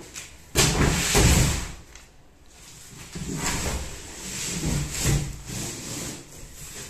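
A large cardboard box scraping and bumping against a wooden bed base as it is tipped over, loudest for about a second near the start. Then a plastic-wrapped rolled mattress slides out of the box across the wood, with rubbing and scraping.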